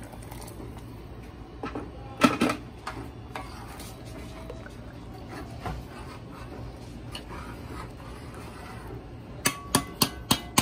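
A metal spoon stirring a thick, watery rice and split-pea mixture in an aluminium pot, scraping and knocking against the pot's side, with a loud knock about two seconds in. Near the end comes a quick run of about five sharp taps of the spoon on the pot.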